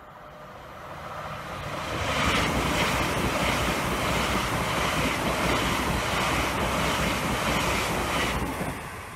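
Class 800-family Intercity Express Train passing at speed: the rush of wheels on rail and air swells up, holds steady for about six seconds, then drops away sharply as the rear of the train goes by.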